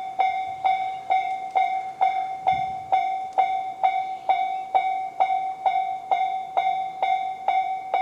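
Japanese level-crossing electronic warning bell, the Tobu 'sound C' type, ringing steadily at about two strikes a second over a held tone. The crossing is active, warning of an approaching train.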